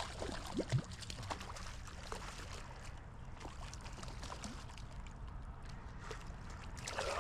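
Creek water running, with scattered light splashes and clicks.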